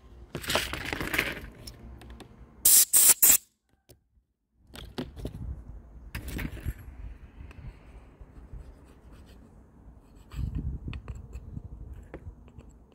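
Compressed air from a blow gun hissing at a chainsaw's plastic recoil starter pulley, a longer blast under a second in, then three short, loud blasts in quick succession around three seconds. After that comes softer scraping and small clicks of a metal tool picking dirt out of the pulley.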